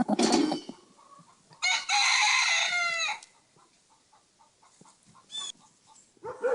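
Farm animal calls: a short, loud call at the start, then a long, loud, high call lasting about a second and a half that drops in pitch at its end, and fainter short calls near the end.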